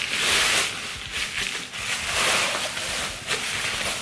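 Bubble wrap around a box crinkling and rustling as it is handled and turned over, in several loud surges.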